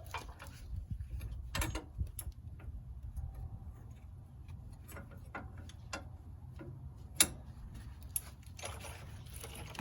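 Hand ratchet wrench clicking irregularly as the 7/8-inch nut on a truck's upper control arm is loosened, with a sharper metal click about seven seconds in.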